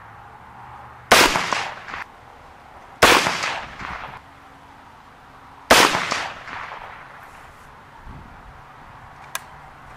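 Three single shots from a 7.62 AK-47 rifle fitted with a muzzle brake, each cracking and then dying away in a short echo. The shots come about a second in, about two seconds later, and nearly three seconds after that. A short, sharp click follows near the end.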